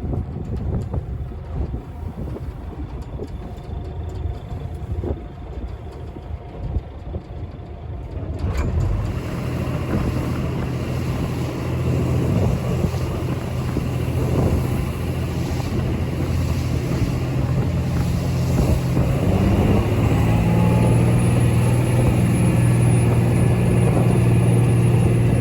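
Wind and water noise, then from about eight seconds in a steady engine drone that grows a little louder toward the end.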